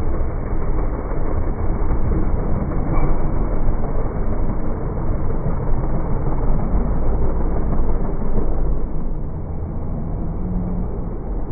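Dirt drag race trucks running hard down the strip and moving away, a heavy low engine noise that fades and thins out about eight or nine seconds in.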